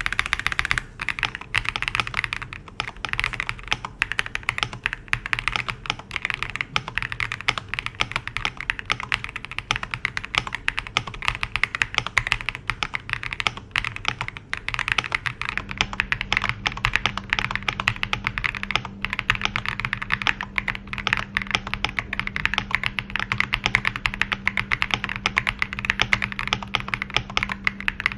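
Fast continuous typing on an FL-Esport OG98 mechanical keyboard with its stock switches: a dense, unbroken run of key clacks.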